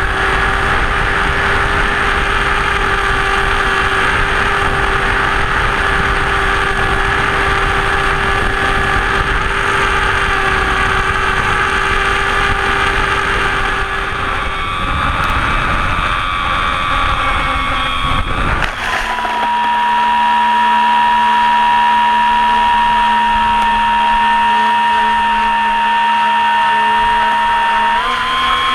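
Onboard audio of the Blitz RC Super Skysurfer's electric motor and propeller: a steady whine under heavy wind rush while flying on the autopilot with nearly empty LiPos. About two-thirds through, the wind noise cuts off suddenly and a steady, higher motor whine runs on with the plane lying in the grass, its pitch dipping briefly near the end.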